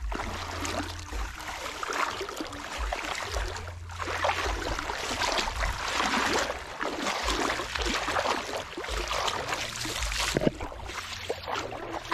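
Water sloshing and splashing as a fishing net is worked through a shallow pond, an uneven noise that swells and eases, with intermittent low rumbles on the microphone.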